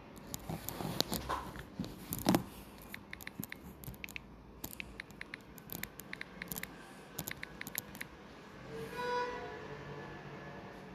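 Irregular taps and clicks of typing on a phone's touchscreen keyboard, loudest about two seconds in, followed about nine seconds in by a short pitched sound.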